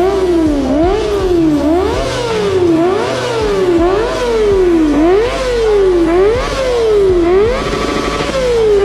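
Kawasaki ZX-25R's high-revving inline-four engine being revved repeatedly, its pitch climbing and falling about once a second, over background music.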